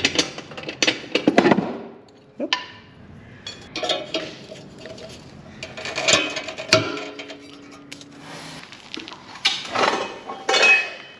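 Metal clanking and clinking as the stock exhaust muffler of a Can-Am Ryker is worked off its pipe, with a tool prying at the steel retaining spring. There are several bursts of knocks, and one metallic ring carries on for about a second.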